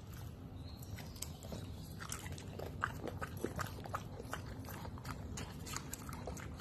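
A pug chewing and gnawing a piece of food, making irregular crunchy clicks.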